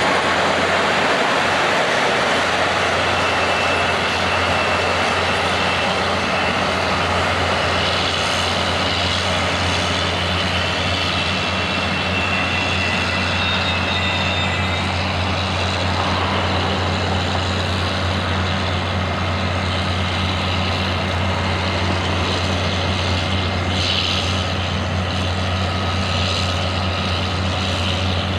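Diesel locomotive engine running steadily with a constant low drone under a broad hiss.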